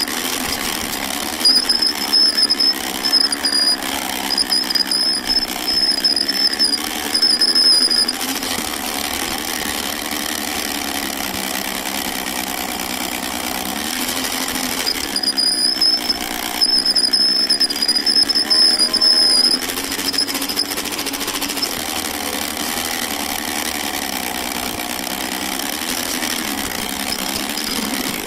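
A battery-powered Lego train's electric motor whirring steadily as it runs along plastic Lego track, its pitch wavering slightly. Twice, for several seconds at a time (from the start, and again about halfway through), a high whine and a clattering rattle join in.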